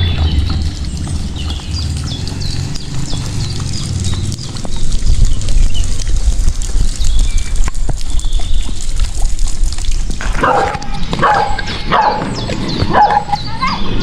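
A dog barking in a quick run of about six barks near the end. Birds chirp faintly throughout over a low rumble.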